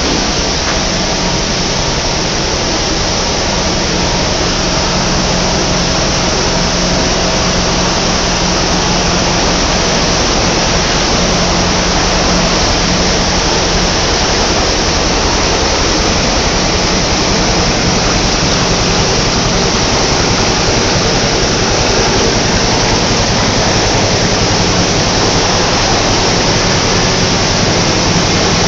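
Tissue paper production machinery running: a loud, steady rush of noise with a faint low hum underneath and no breaks.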